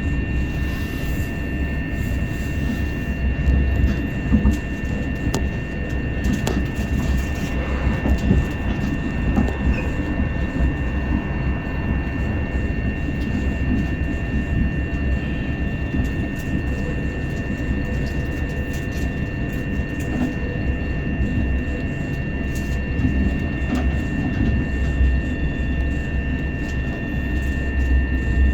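Passenger train running at speed, heard from inside the carriage: a steady low rumble of wheels on track with a constant high-pitched whine and scattered clicks and knocks.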